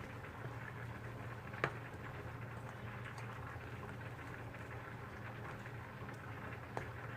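A steady low hum under an even, faint crackling hiss, with a sharp click about one and a half seconds in and another near the end.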